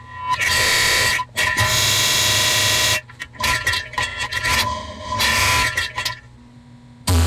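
Bass-boosted, time-stretched diarrhea sound effect: loud, distorted, drawn-out horn-like blasts, several long ones with short breaks between them. A deep, steady drone starts near the end.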